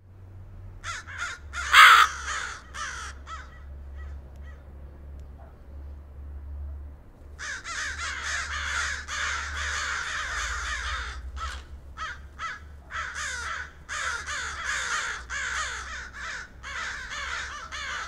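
Crows cawing. A few scattered harsh calls come first, with a sharp, loud burst about two seconds in. From about seven seconds in, many caws overlap as from a flock, over a low steady rumble.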